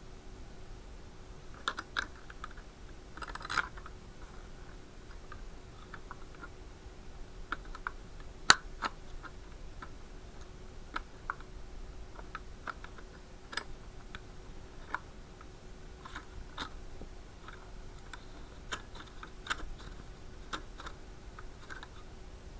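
Irregular light clicks and taps, a few seconds apart, with one much sharper click about eight seconds in, over a faint steady hum.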